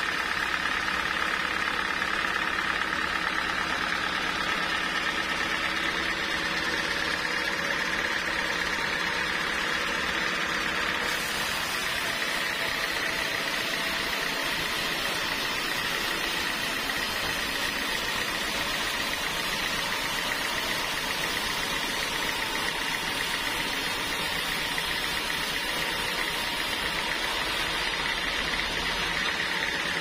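Homemade band sawmill running, its blade sawing a large trembesi (rain tree) log: a steady machine drone with a high tone over a hiss, the hiss turning brighter about eleven seconds in.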